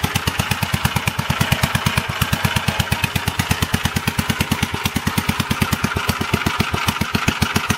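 1947 Gravely walk-behind tractor's single-cylinder engine running steadily, a strong even beat of about ten firing pulses a second. It runs with a broken exhaust manifold.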